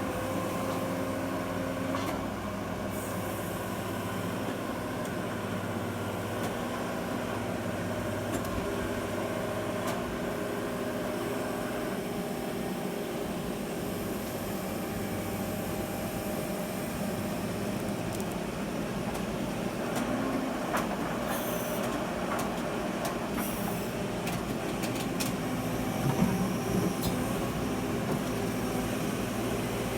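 Diesel engine of heavy construction machinery running steadily, with a few sharp knocks and clanks in the second half.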